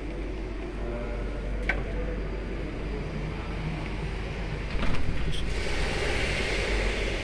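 Steady low background rumble of an outdoor urban yard, with a glass door knocking shut about five seconds in.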